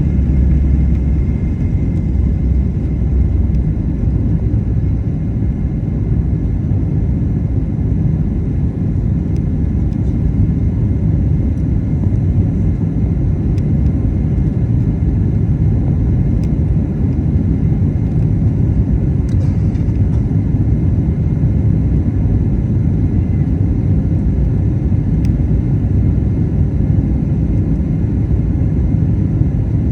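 Boeing 737 jet engines running at takeoff power: a loud, steady low rumble that holds at an even level.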